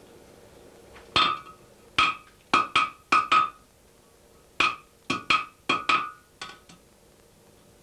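Blacksmith's hand hammer striking hot iron on an anvil: about a dozen quick blows in two runs, each with a short metallic ring, with a pause of about a second in the middle.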